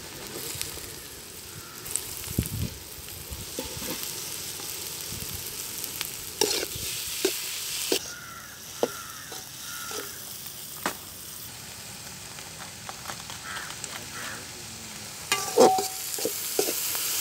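Chopped onion and capsicum sizzling as they fry in a large aluminium kadai, stirred with a metal ladle that scrapes and clinks against the pan. The loudest clatter of the ladle comes near the end.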